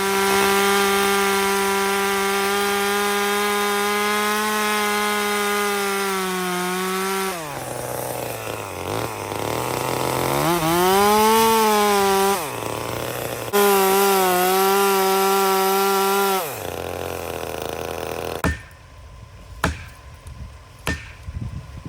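Gas chainsaw cutting through a pine trunk in a felling cut. It runs at high speed, drops in pitch under load twice in the middle, then falls back to idle and shuts off about three-quarters of the way through. A few sharp knocks follow.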